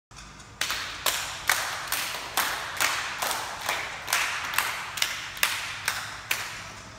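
A steady beat of sharp strikes, a little over two a second, each ringing out briefly in the echo of a large gymnasium hall.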